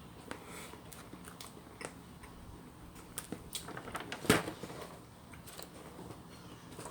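Close-up eating sounds of biting into a soft salted egg bun and chewing it: scattered soft clicks and small crackles, with one sharper click a little past the middle.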